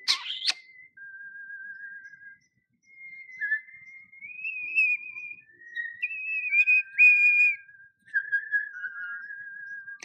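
Recorded human whistling of a slow melody, clear pure notes that hold, wobble and slide from one to the next, played through laptop speakers. Right at the start a short harsh call from a common starling cuts in.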